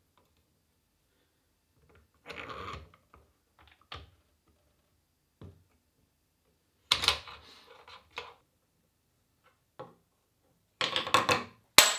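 Scattered knocks, clicks and clatters a second or two apart, with the loudest, a sharp hit, about seven seconds in and a busier run of clatter near the end.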